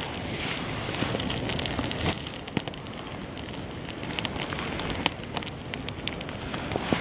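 Small fire of dry grass tinder and twigs crackling with scattered sharp pops as it catches.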